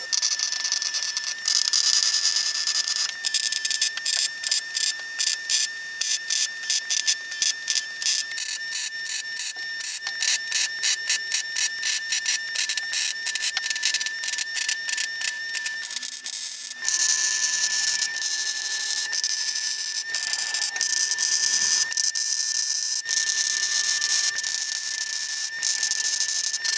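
MIG welder arc crackling as steel roll-cage tubing is welded. It comes in short stitch welds, about two a second, for much of the time, then in longer runs, with a steady high whine underneath.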